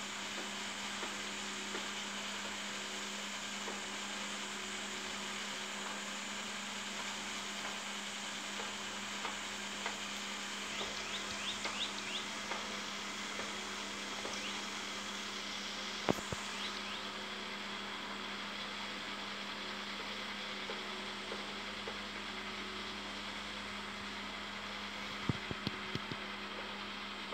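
Steady background hum and hiss with a constant low tone. It is broken by a few faint short scratches and ticks of a pen moving on paper: a cluster about ten seconds in, a sharper click a few seconds later, and a few more near the end.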